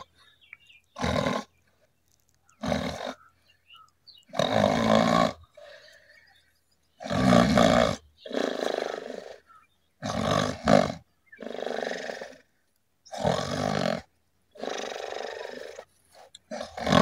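A person snoring: a string of loud snores about every one and a half seconds, several of them coming in close pairs.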